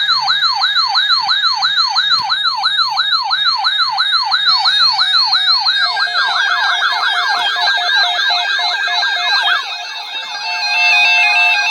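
Electronic emergency-alert siren tone: a loud pitch that sweeps downward over and over, about four times a second. About six seconds in, a second overlapping sweeping tone joins. Near the end the sweeps give way to stepped electronic tones jumping between fixed pitches.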